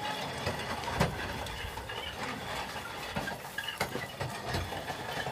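A metal casket is slid and set onto the metal rails of a graveside lowering device. There is scraping and a run of irregular clanks and knocks, the loudest about a second in.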